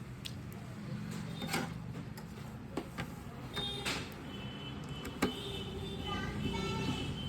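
Scattered sharp clicks and taps, about five of them, from handling and fitting the TV's circuit boards and connectors, over a steady low hum.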